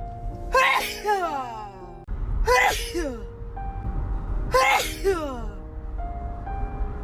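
A woman sneezing three times in a sneezing fit, about two seconds apart: each sneeze starts with a short voiced intake, breaks into a sharp breathy burst and trails off in a falling voice. Background music with held notes runs underneath.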